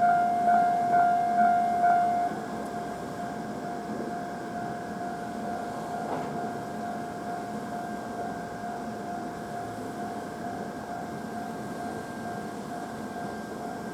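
Japanese railway level-crossing alarm bell ringing in an even kan-kan beat, about two strikes a second. About two seconds in it drops suddenly to a lower level and keeps ringing at the same beat.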